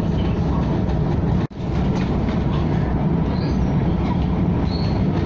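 KTM ETS electric train running along the line with a steady, heavy rumble. The sound drops out for an instant about a second and a half in.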